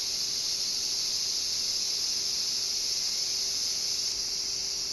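Olive oil simmering around pieces of frigate tuna in a pot, giving a steady high hiss, with a faint steady low hum beneath it.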